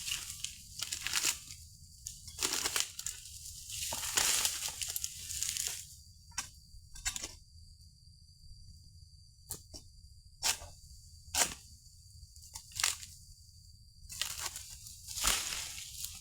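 Oil palm fronds being cut with an egrek (pole-mounted sickle): rustling and tearing of leaves for the first several seconds and again near the end, with about half a dozen separate sharp cracks in between.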